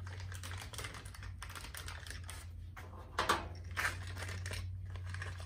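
Small clear plastic parts bag crinkling and rustling as hands open it and work the O-rings out, with many small rapid crackles and a couple of louder ones about three seconds in, over a steady low hum.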